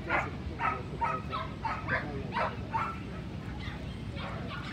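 A dog barking in a quick run of short, high yaps, about two or three a second, easing off after about three seconds.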